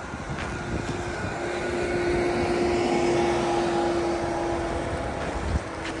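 Road traffic passing: tyre and engine noise swells to its loudest around the middle and eases off, over a steady engine hum.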